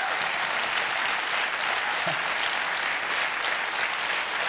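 Studio audience applauding, a steady, dense clapping after a punchline.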